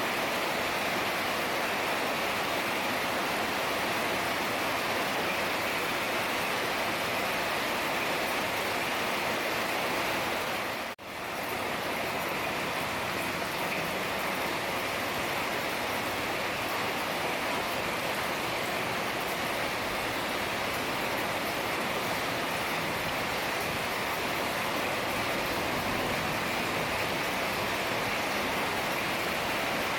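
Heavy rain falling steadily, an even hiss. About eleven seconds in the sound drops out for a split second and comes straight back.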